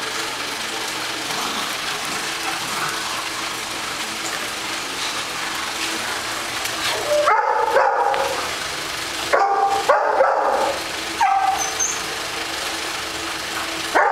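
A dog barking: several short barks in clusters from about halfway through, and again at the very end, over a steady background hiss.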